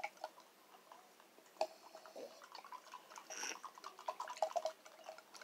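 Drinks being stirred with plastic straws in a glass mason jar and a ceramic mug: scattered light clicks and taps against the sides, with a sharper click about a second and a half in and a brief scraping swish a couple of seconds later.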